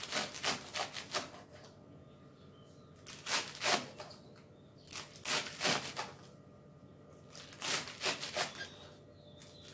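Cleaver chopping a bundle of garlic chives on a plastic cutting board: four short runs of quick knocks, a few seconds apart.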